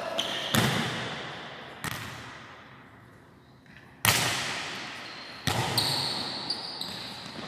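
A volleyball being struck in passes, sets and a spike, four sharp smacks that ring on in a large hall. The loudest comes about four seconds in, at the jump hit. Short high squeaks sound between the hits.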